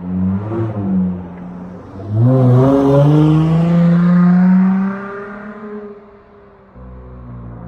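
Dodge Charger SXT's V6 through a Flowmaster Outlaw exhaust: a short rev about a second in, then a hard acceleration with the exhaust note rising in pitch for about three seconds before the throttle lifts and the sound falls away to a low, steady drone.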